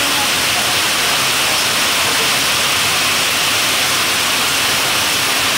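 Heavy monsoon downpour: a loud, steady hiss of rain falling on the ground and road.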